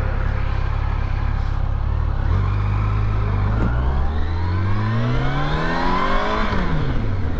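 Yamaha FJR1300 motorcycle's inline-four engine running steadily, then accelerating with its pitch climbing for about four seconds before falling away near the end.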